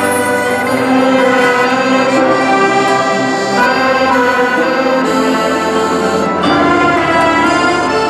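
String orchestra with harp playing slow, sustained chords that change about three and a half seconds in and again near the end.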